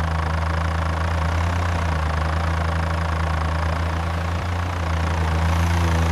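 Animated tractor's engine sound effect running steadily with a low drone.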